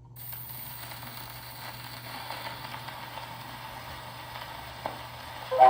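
Surface noise of an old Standard Disc record on a phonograph: a steady hiss and crackle from the lead-in groove that starts suddenly as the needle sets down. The band's opening notes come in at the very end.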